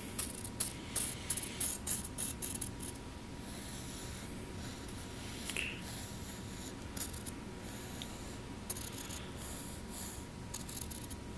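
Pencil scratching across lined notebook paper in short drawn strokes, several in quick succession near the start and then more spaced out. Underneath runs a steady background hum and hiss from the old phone's recording.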